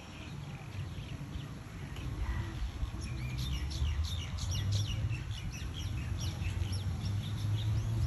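A flock of birds chirping together, quick falling chirps overlapping and growing busier about three seconds in, over a low steady hum that gets louder.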